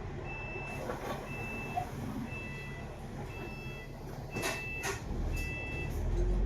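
Electronic warning beeper sounding six evenly spaced high beeps, about one a second, over the low rumble of a bus engine, which grows louder near the end.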